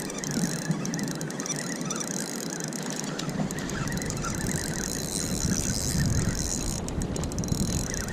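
Fishing reel being cranked steadily with a fish hooked on the line, its gears whirring and squeaking.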